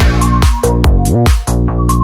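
Electronic dance music with a steady beat, heavy bass and sharp percussive hits.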